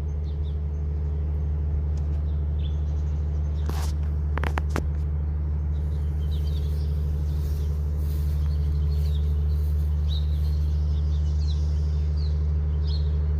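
A steady low motor drone, like an idling engine, with small birds chirping now and then and a few short clicks about four seconds in.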